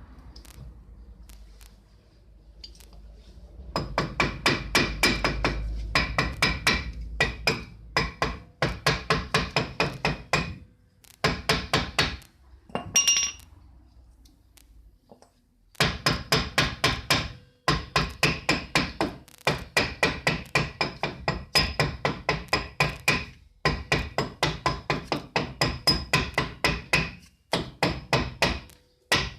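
Hammer rapidly tapping on metal at the rear wheel hub, in runs of a second or two with short pauses, each run of strikes carrying a metallic ringing.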